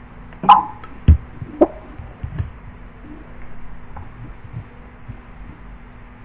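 A few short clicks and knocks in the first couple of seconds, the loudest about half a second in, then only a low background.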